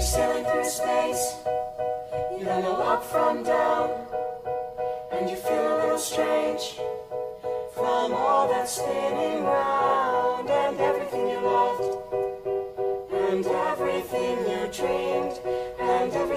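Music: a choir singing in harmony over steady held notes.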